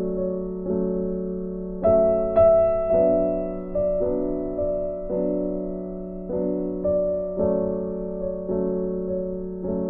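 Background music: a slow, gentle piano tune, with each note struck and left to fade before the next.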